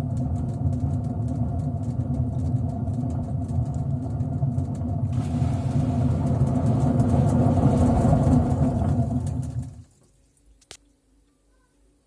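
LG F8068SD washing machine drum spinning, with a loud hum and rumble from a worn drum bearing. The sound grows louder and harsher about five seconds in, then cuts off suddenly near the end, followed by a single click.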